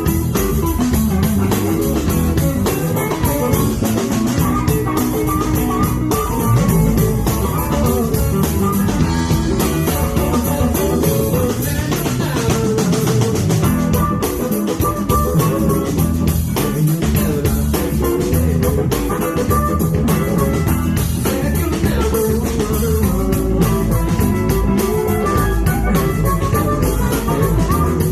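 Blues band playing an instrumental passage: guitars, bass guitar and drum kit.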